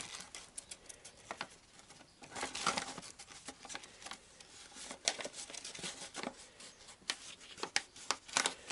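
A sheet of paper crinkling and rustling in irregular scratchy bursts as it is pressed over a hole in an engine casing and rubbed to trace the hole's outline.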